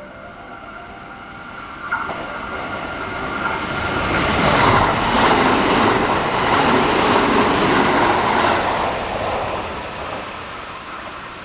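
A Sanyo Electric Railway train running through the station without stopping: the sound swells to a peak in the middle and then fades, with the wheels clattering over the rail joints as it goes by. A sharp click about two seconds in.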